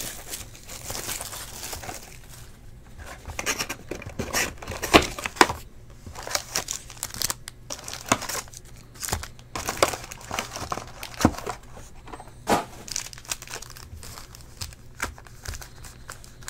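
Foil wrappers of Panini Select basketball card packs crinkling and tearing as packs are handled and ripped open: irregular crackles and sharp rips, a couple of the loudest around five seconds in.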